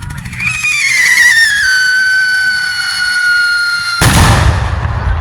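Firework whistle: a shrill whistle that slides down in pitch over its first second, then holds steady for about two and a half seconds. It ends in a loud bang about four seconds in.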